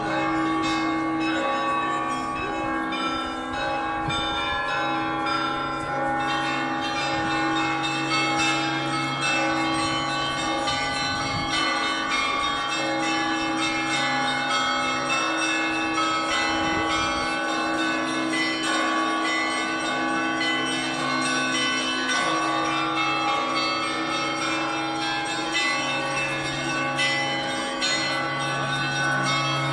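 Set of bells being rung continuously, many pitches ringing over one another, with deep low bells held beneath the higher ones.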